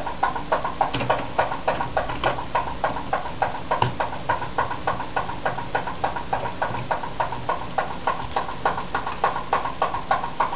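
A steady, rapid ticking, about four sharp ticks a second, under a faint low hum.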